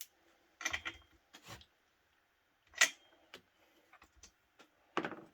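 A few light knocks and clicks of parts and tools being handled on a workbench. The sharpest, loudest click comes about three seconds in. No engine is running.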